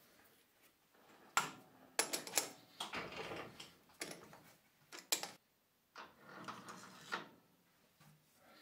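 Metal clicks and knocks, several sharp ones spaced irregularly over a few seconds, as a live center in a holder is fitted and clamped into a lathe's tool post.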